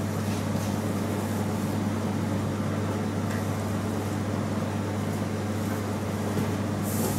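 Steady low electrical machine hum of bakery kitchen equipment, with faint soft handling noises of dough being pressed on a wooden table and a brief brushing noise near the end.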